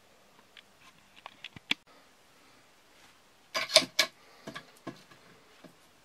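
Handling noise from the wooden trap parts: a few light clicks, a sharper click a little under two seconds in, then a short clatter of wooden knocks halfway through, the loudest sound, followed by a few softer clicks.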